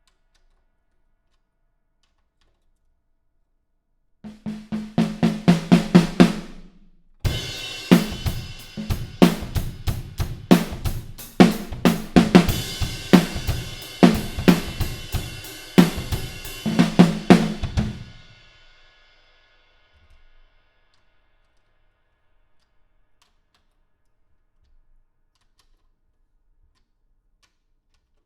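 A 14x7 flame maple stave snare drum with Puresound snare wires, played first as a quick run of strokes about four seconds in, then in a drum-kit groove with bass drum, hi-hat and cymbals for about ten seconds. The cymbals ring out and stop about nineteen seconds in, and the rest is silent.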